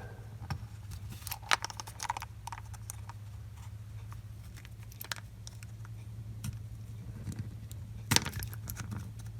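Small sharp clicks and light rattles of a patio heater's tilt switch housing being prised open and handled, the loudest click about eight seconds in. A steady low hum runs underneath.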